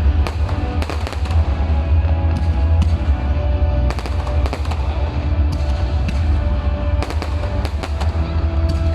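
Aerial fireworks going off in an irregular rapid series of sharp bangs and pops, with music playing underneath.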